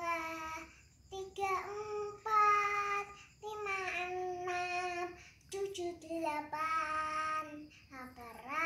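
A young girl singing unaccompanied, holding notes in short phrases with brief pauses between them.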